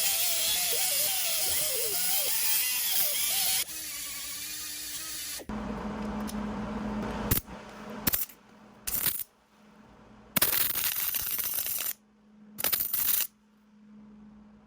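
Workshop sounds of work on a cast-iron pipe vise, cut together in short pieces. The first few seconds are a steady, loud noise with a wavering pitch. After that come sharp metal clicks and clinks and several brief bursts of noise, each cut off abruptly.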